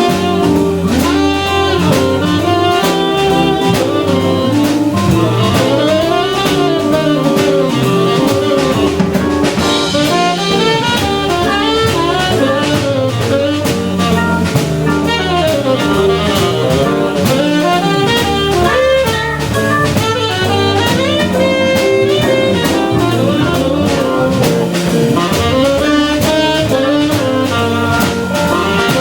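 Jazz combo playing live: tenor saxophone lead over organ, electric guitar and drum kit, an up-tempo groove that runs without a break.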